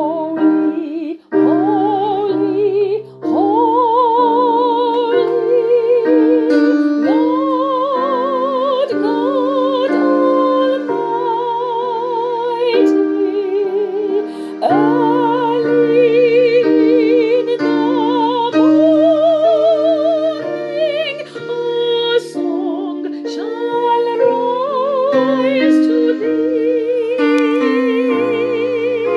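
Music: a woman's voice singing in an operatic style, with wide vibrato on long held notes, over a sustained accompaniment.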